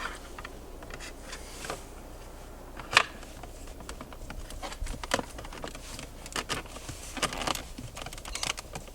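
Hands handling and pressing on a stick-on carbon-fibre trim cover: scattered light clicks and crinkling rustles, with one sharper click about three seconds in.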